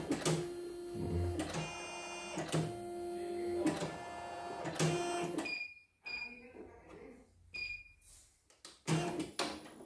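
A CNY computerized embroidery machine starts a test run: its motors whine steadily in several stretches, then three short high beeps sound. About a second before the end, the needle starts stitching rapidly.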